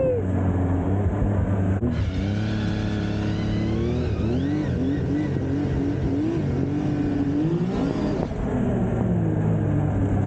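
Turbocharged Arctic Cat Riot snowmobile engine running while riding, its revs rising and falling repeatedly under changing throttle in the middle stretch. A short click about two seconds in.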